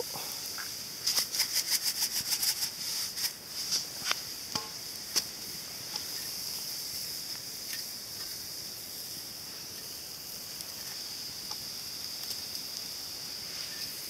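Mushrooms frying in a cast-iron skillet over a campfire: a steady high sizzle, with a quick run of crackles and pops about a second in and a few single pops after.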